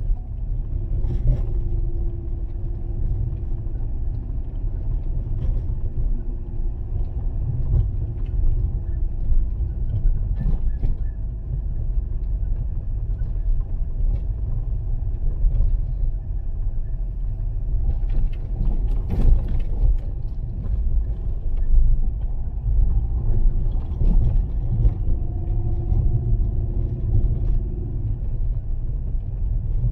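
Fiat Panda 4x4 driving along a snow-covered road: a steady low rumble of engine and tyres, with a faint steady hum above it and a few light knocks.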